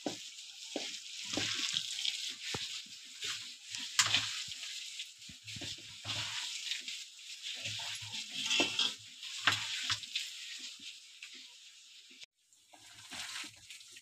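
Wet potato-and-gram-flour pakora batter being mixed by hand in a steel bowl: uneven crackly squelching and scraping, with many short clicks and soft knocks against the bowl.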